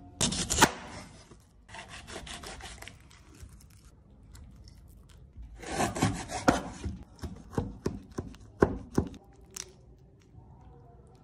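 Kitchen knife cutting through a pineapple on a wooden cutting board, with long slicing strokes through the rind and flesh. In the second half comes a quick run of sharp knocks as the blade chops down onto the board.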